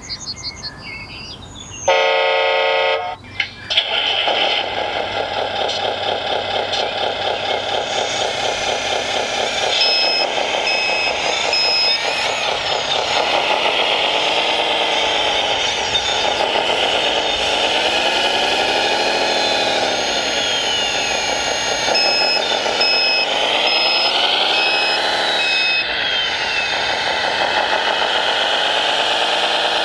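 An RC truck's electronic sound module: a horn blast about two seconds in, then a simulated diesel engine running and revving up and down. An intermittent reversing beeper comes in twice.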